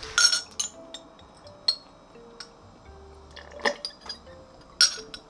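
A glass tumbler and metal straw clinking several times, with sips of water through the straw, over soft background music.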